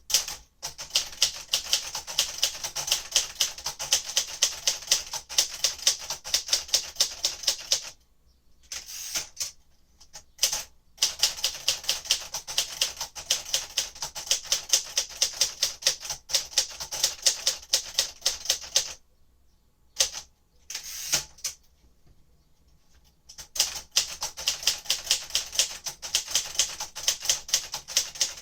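1957 Royal Aristocrat manual typewriter being typed on: quick runs of key strikes, several a second, with two pauses, about 8 seconds in and again about 19 seconds in, broken by a few single strokes.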